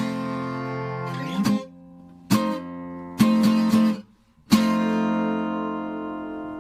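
Outro music: acoustic guitar strumming a few chords, the last one left to ring.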